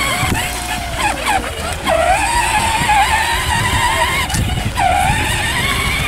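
Electronic simulated ATV engine sound from a kids' 12V ride-on quad's speaker, playing as the quad is driven. It is a wavering, engine-like drone that twice dips in pitch and climbs back, about three seconds apart, like a looped rev sample.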